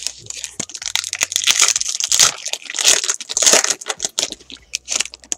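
Foil wrapper of a Bowman Chrome baseball card pack being torn open and crinkled by hand: a dense, high-pitched crackling rustle that thins out to a few crinkles near the end.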